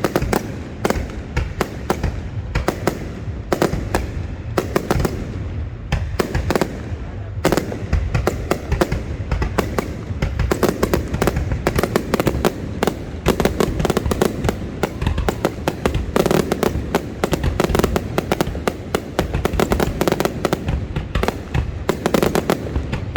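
Fireworks display going off in a dense, continuous barrage of bangs and crackling, many bursts a second with no pause.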